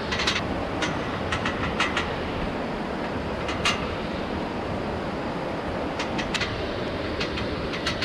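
Steady rush of a strong waterfall, with scattered sharp clicks and knocks from hands and feet working a steel rung ladder on the rock face.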